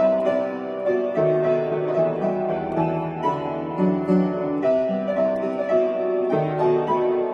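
Solo piano playing: sustained chords and a melody, with new chords struck about every half second.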